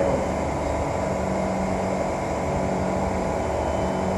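Steady interior noise of a Kawasaki C151 MRT train: an even rumble with a constant low hum and no change in pitch.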